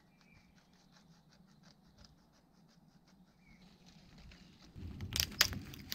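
Hands working at a spruce trunk's bark: quick, even scratching strokes, then two sharp knocks a little after five seconds in. A bird chirps briefly a couple of times.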